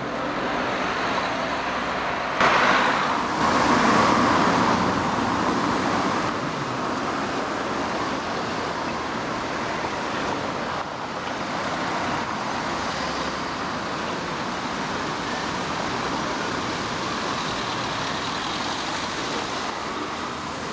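Road traffic noise, with a vehicle passing close and loudest a few seconds in, then a steady hum of traffic.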